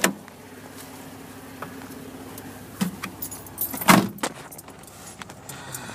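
Jeep Wrangler idling with a steady low hum, under jangling and clicking handling noises and a loud thump about four seconds in.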